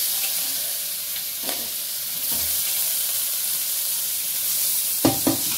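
Boiled chickpeas sizzling in hot oil and spiced onion-tomato masala in an aluminium kadhai, a steady frying hiss. Two sharp knocks come near the end.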